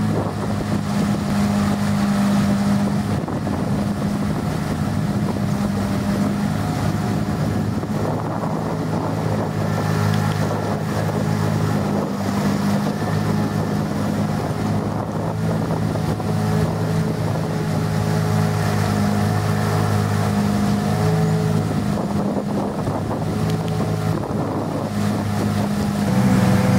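Outboard motor of a small river boat running steadily under way, with wind noise on the microphone. Near the end the engine note rises and gets louder.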